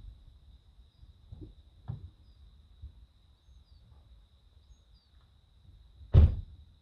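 Crickets trilling in one steady high note in a field at dusk, with a few faint bird chirps and a low rumble. Small knocks come about one and a half and two seconds in, and a loud, short thump near the end.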